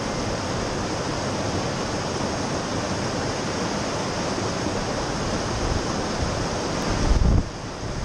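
Rushing white water of a fast mountain river over rocks, a steady roar, with wind buffeting the microphone. The wind is strongest in a gust about seven seconds in, after which the sound drops off abruptly.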